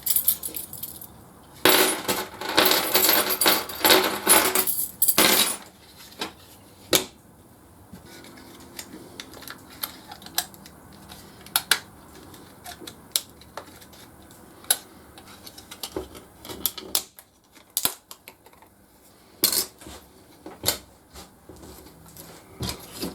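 Plastic case of a Renault Megane remote car key being handled and prised apart: a loud dense clatter for about four seconds near the start, then scattered sharp clicks and taps of the plastic halves and parts.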